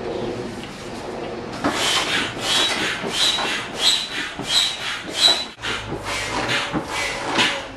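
Foot pump forcing air through a hose into an inflatable boat's side tube: a run of rhythmic hissing strokes, about one and a half a second, some with a faint whistle, starting about a second and a half in.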